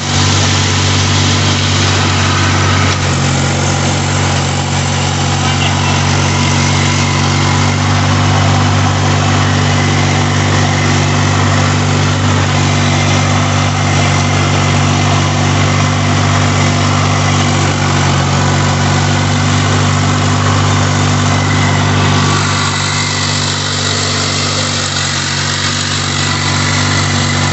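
Farm tractor engine running steadily, heard from the driver's seat, as it pulls a tillage implement through loose soil to form raised beds. It eases slightly about three quarters of the way through.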